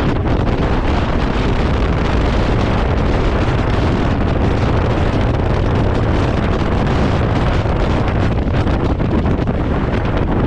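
Steady wind noise buffeting the microphone on a moving motorcycle, with vehicle rumble underneath.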